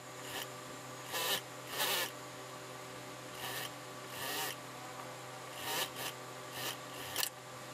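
Suit-trouser wool fabric rustling and sliding in short, separate strokes as hands smooth and position it on a sewing-machine bed, over a steady low hum.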